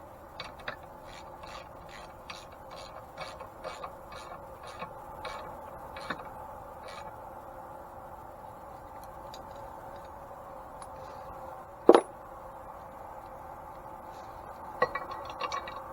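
Ratchet wrench clicking steadily, about three clicks a second, as a bolt is run down on an antique grain mill. About twelve seconds in comes one loud, sharp metal knock, and the ratchet clicks again near the end.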